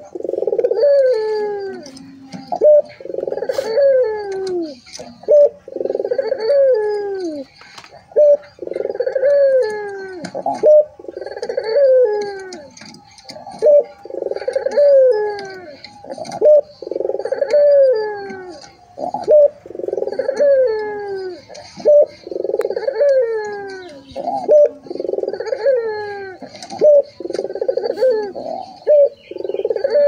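Barbary doves (puter) cooing over and over: loud falling coos about every one to two seconds, several overlapping, with faint high chirping behind them.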